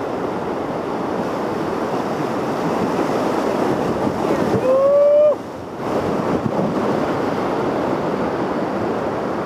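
Whitewater rapids on the Ocoee River rushing and churning around a raft, a steady dense roar of water. About five seconds in, a person lets out one long whoop, and the water noise cuts out for half a second just after.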